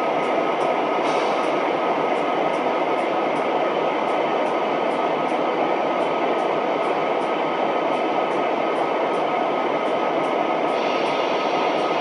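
Railyard ambient train sound: a continuous even rush of rail noise with a steady high whine and faint ticking about three times a second, growing brighter near the end.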